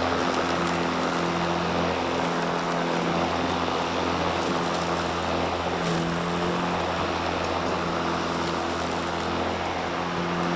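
Battery-powered lawn mower running steadily while mowing: a constant motor hum with a few steady tones that fade and return, over the rush of the spinning blade.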